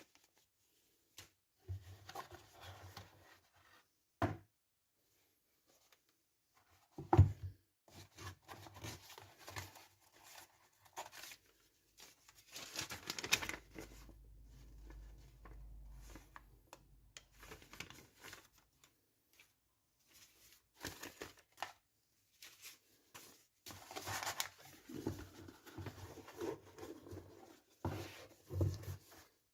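Packaging being handled and opened: intermittent rustling, crinkling and tearing of wrapping, with scattered knocks, the sharpest about seven seconds in.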